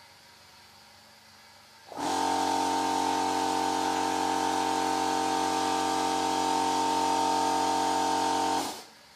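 TRADEair 50 L, 2 HP lubricated direct-drive piston air compressor starting up about two seconds in and running with a loud, steady drone, then cutting off shortly before the end as it is switched off.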